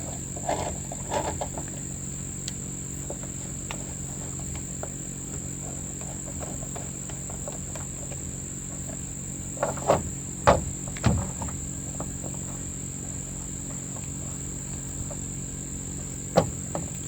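Crickets chirping steadily over a low hum, with a few sharp clicks and knocks of a clamp and tools being handled on the chainsaw about ten seconds in, and one more knock near the end.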